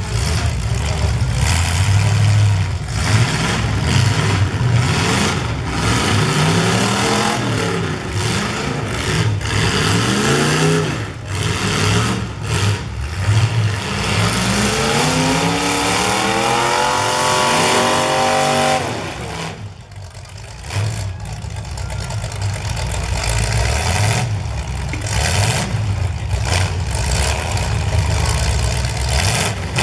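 Full-size demolition derby cars' engines revving up and down, with the sharp bangs of cars hitting. One engine winds up for several seconds and cuts off abruptly about two-thirds of the way through.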